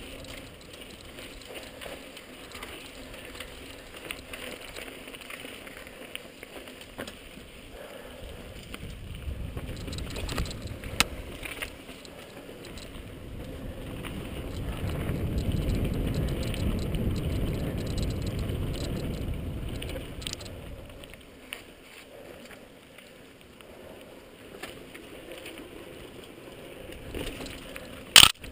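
Mountain bike ridden over dirt singletrack, heard from a helmet-mounted camera: a continuous rush of tyre and trail noise with small rattles and clicks, and a louder low rumble of wind on the microphone through the middle. A single sharp, loud click comes near the end.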